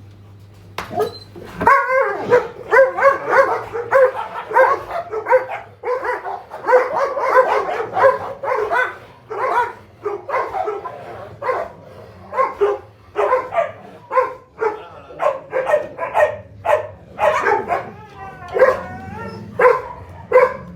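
Dogs barking loudly and repeatedly, several barks a second, starting about a second in, with a higher, wavering howl-like call near the end.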